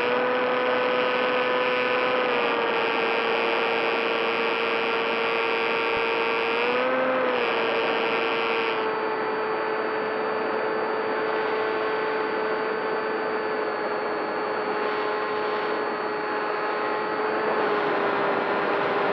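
Skywalker FPV model plane's electric motor and propeller running at cruise, a steady whine. Its pitch dips slightly about two seconds in and rises briefly about seven seconds in as the throttle changes, and a hiss over it stops about nine seconds in.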